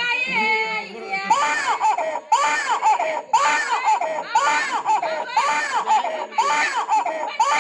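A performer's voice imitating a crying baby: seven wailing cries, about one a second, each rising and falling in pitch, starting about a second in.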